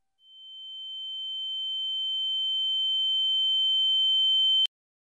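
A single high-pitched, steady ringing tone that swells steadily louder for about four and a half seconds, then cuts off abruptly.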